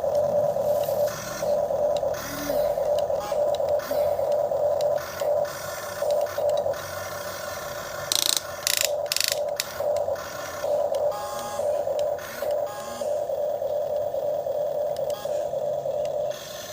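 The electric motors and gearing of an RC excavator whine in short start-stop spurts as its controls are worked. A few sharp scraping clicks come about halfway through.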